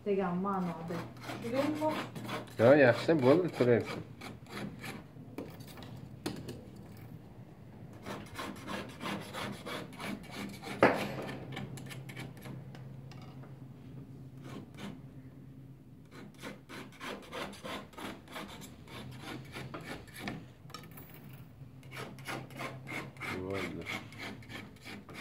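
Hands working silk threads on a wooden handloom: repeated rubbing and scraping with light clicks. A short wavering pitched sound is the loudest thing, a few seconds in, and a faint steady low hum runs underneath.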